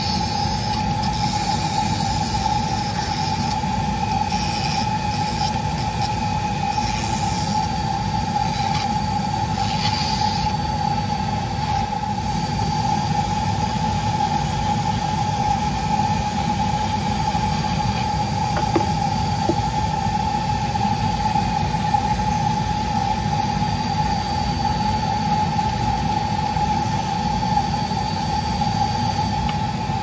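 Handheld rotary carving tool running steadily with a constant whine, its small burr cutting a pattern of round holes into a wood carving.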